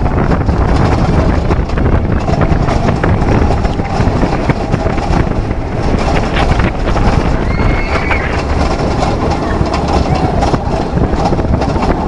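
Arrow suspended roller coaster train running along its steel track: a loud, steady rumble and clatter of the wheels, with wind buffeting the microphone. Riders' voices come through, with a brief high squeal about eight seconds in.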